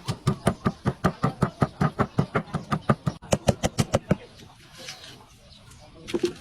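Rapid, even knocking, about six or seven strikes a second, stopping about four seconds in.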